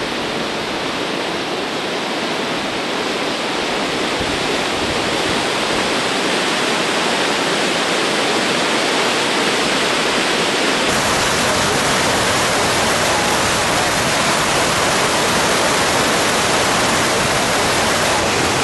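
Floodwater pouring through the open sluice gates of the Vaal Dam wall and churning in the river below: a loud, steady rushing roar that grows deeper about ten seconds in.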